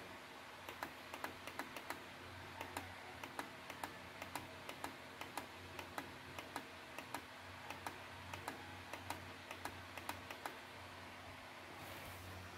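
Light clicks of laptop keys being tapped, two or three a second at irregular spacing, stopping about ten seconds in. A low steady hum runs underneath.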